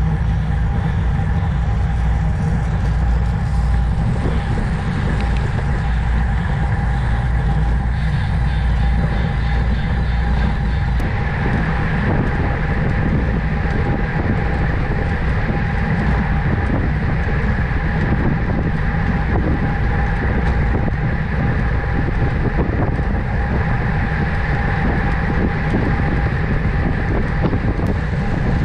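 Steady wind rumble on the microphone with road and tyre noise, as from a bicycle being ridden at speed, even and unbroken throughout.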